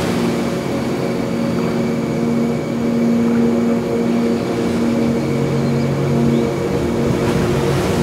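Ocean ambience: a low, steady drone of several held tones over a soft wash of sea noise. A lower tone joins about five seconds in.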